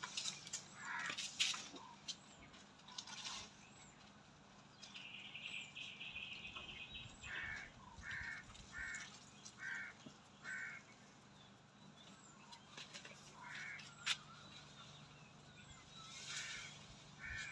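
Faint birds calling: a harsh call, then five short calls repeated about one every 0.8 seconds, with scattered chirps. A few sharp clicks stand out, one loud about 14 seconds in.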